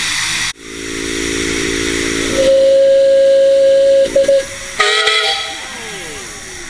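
Miniature steam locomotive's whistle blowing over a loud hiss of escaping steam. A long held note starts about half a second in and breaks into short toots around the four-second mark. A brief, brighter blast follows about a second later, then the steam hiss carries on.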